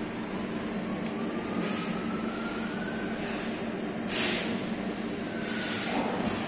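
Steady low hum of workshop machinery around a CNC lathe. A faint whine rises in pitch between about one and three seconds in, and short bursts of hiss come three times, the loudest just after four seconds.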